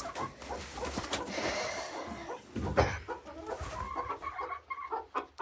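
Chickens clucking in short calls, with rustling and a few light knocks early on.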